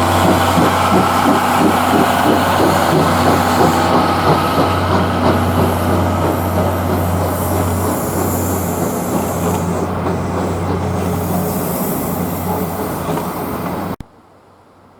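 SL Taiju steam-hauled train running by: a dense, loud rumble of the train with rapid rhythmic beats over a steady low hum, cutting off abruptly about a second before the end.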